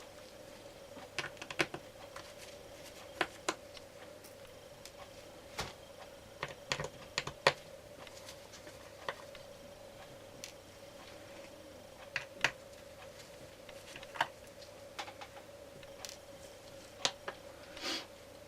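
Irregular light clicks and taps of a small screwdriver and tools on an iPad 2's frame while the four screws holding its LCD screen are taken out, with a few louder ticks.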